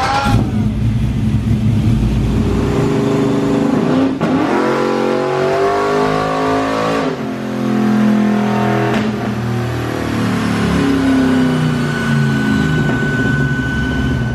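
Chevrolet Silverado pickup's engine making a pull on a chassis dyno: loud and steady at first, then the revs climb, drop sharply about seven seconds in as it shifts up, and climb again. A thin, steady high whine runs over the last few seconds.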